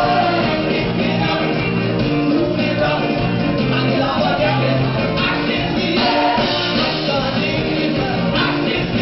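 Live band playing an upbeat song, with trombone and drum kit, and a male lead singer on microphone.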